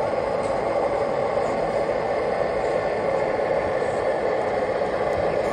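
Steady background noise of a busy exhibition hall: an even, unbroken rush without distinct events.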